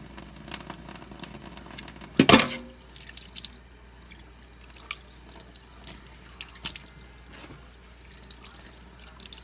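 Water splashing and dripping in a kitchen sink, with scattered light knocks and one loud clank with a short ring about two seconds in.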